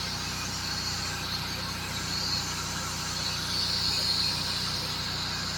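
An engine running steadily at idle, a low even hum, with a hiss above it that swells and fades.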